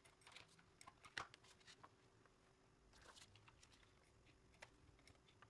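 Near silence with faint paper-handling sounds: scattered soft taps and rustles of card stock, and a double-sided tape runner drawn along the paper's edge.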